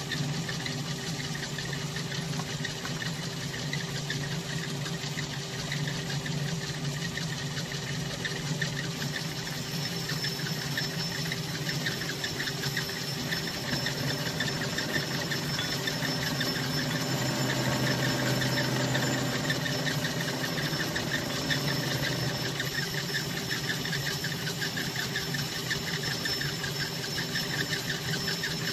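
Metal lathe running steadily while taking a spring cut, a finishing pass repeated at the same setting to clean up the surface. A steady machine hum, with a faint high whine that comes in about a third of the way through.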